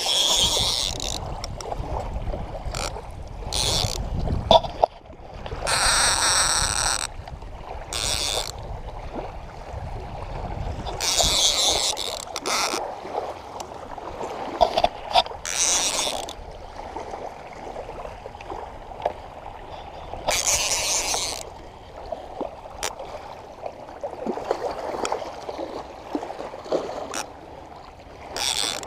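Water sloshing and splashing, with brief hissing bursts every few seconds and scattered clicks; a low wind rumble on the microphone fades out about ten seconds in.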